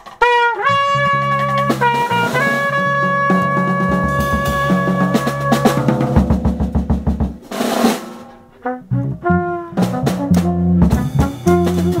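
Monette cornet playing long held notes over electric bass and a drum kit in a small jazz group. The cornet comes in with a quick upward scoop and holds its notes for several seconds, then breaks off. After a brief wash of noise from the drums about eight seconds in, the cornet returns with shorter phrases.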